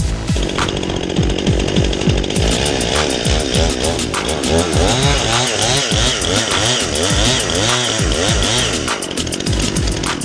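Two-stroke chainsaw running under load, its engine note rising and falling again and again as it cuts, over electronic dance music with a steady beat.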